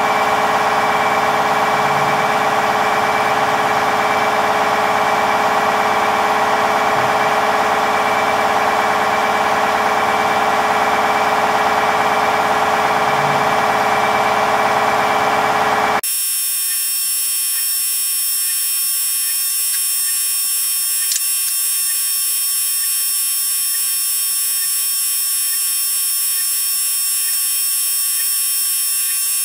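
The motor of a wood-densification press running with a steady, many-toned electric hum. About halfway through it switches abruptly to a thinner, higher-pitched whine.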